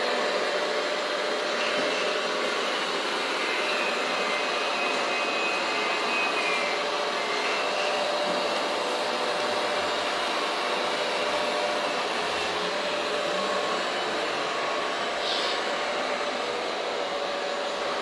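Steady whirring of a radio-controlled model tractor's electric drive as it pulls a loaded tipper trailer, over a continuous hiss of background noise.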